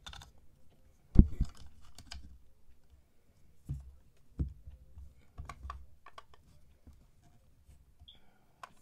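Scattered hard plastic clicks and taps from a toy Poké Ball's shell and inner stand being handled, with one louder knock about a second in.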